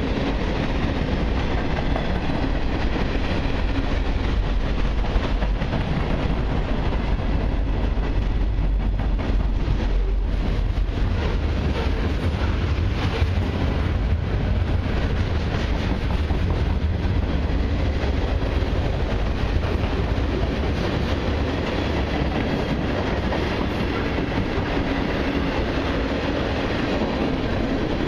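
Freight cars of a long mixed train rolling past: a steady, deep rumble of steel wheels on the rails with scattered clicks as the wheels cross the rail joints.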